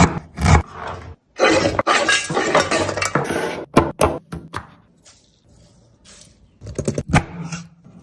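Kitchen clatter while preparing chicken: sharp knocks and clinks of dishes and utensils, with a stretch of scraping about one to three seconds in, then a short lull before more knocks near the end.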